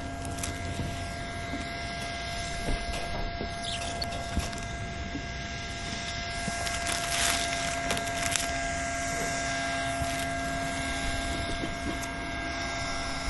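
A steady electric hum holding a few fixed tones, with light rustling and taps as a hand presses and smooths self-adhesive SBS membrane.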